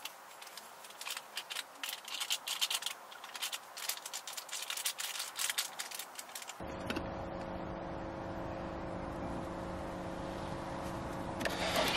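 Crinkling and crackling of a cup noodle's lid and packaging being peeled open and handled. About six and a half seconds in it cuts off abruptly, and a steady mechanical hum with a low drone takes over. Near the end comes a short splash as water is poured into the cup.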